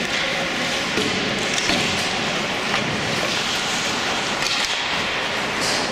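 Ice hockey in play: skates scraping on the ice, with scattered sharp clacks and knocks of sticks and puck.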